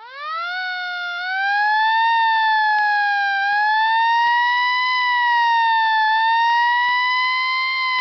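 A siren winding up quickly in pitch, then holding a high, slowly wavering wail.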